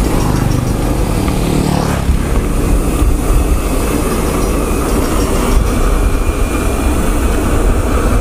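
Wind buffeting a bike-mounted camera's microphone and tyre noise as a mountain bike rolls along a paved road. A motor scooter's engine is heard passing in the first two seconds.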